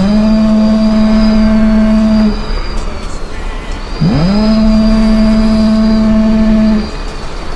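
Two long horn blasts, each sliding up in pitch at the start and then holding one steady low note for about two and a half seconds, the second starting about four seconds in. A steady rumble runs underneath.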